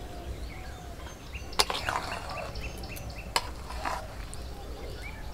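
A flat spatula stirring jujubes in sticky jaggery in a metal wok, knocking sharply against the pan twice, about a second and a half in and again near three and a half seconds. Birds chirp with a quick run of short high notes in the middle, over a low wind rumble.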